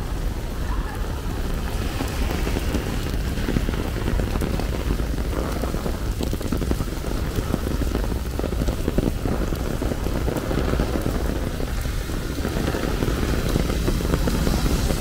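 Steady monsoon rain falling and pattering on surfaces, an even wash of sound with a constant low rumble underneath.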